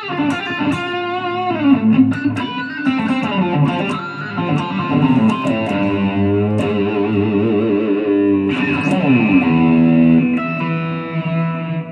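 Electric guitar played through a Nano Cortex amp-modeling pedal, playing a lead line. Quick runs of notes give way to held notes with wide vibrato, then a pitch slide downward about nine seconds in, and notes left ringing near the end.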